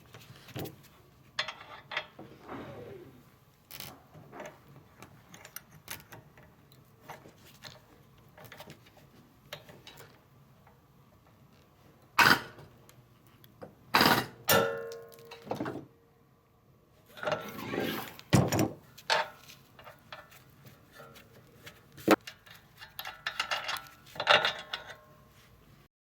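Steel parts of a ball-joint press tool set being handled and fitted together: scattered clicks and clinks, several sharp metal knocks, and a brief metallic ring about halfway through.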